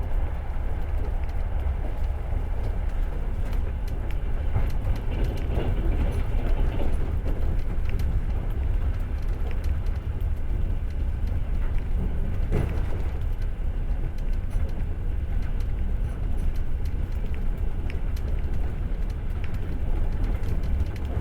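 Long-distance passenger train carriage running along the rails, heard from inside as a steady low rumble of wheels and track, with one sharp knock about halfway through.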